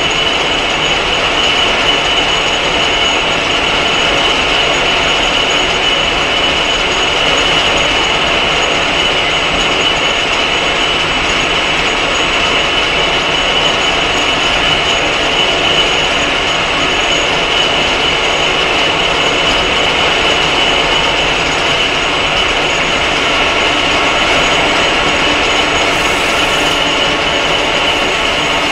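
Clausing 1500 metal lathe running and turning down round stock, the cutting tool throwing chips. A steady machine noise with a constant high whine, no change in pace.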